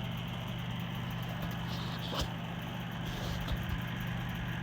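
Coleman mobile home gas furnace running with its burners lit: a steady hum from the draft inducer motor, which the technician says needs replacing. A single click about two seconds in.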